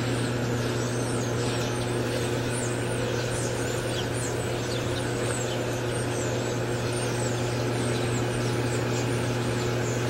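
A large flock of European starlings and blackbirds calling all together, a dense overlapping chatter of short high chirps and whistles, many sliding down in pitch. Under it runs a steady low hum.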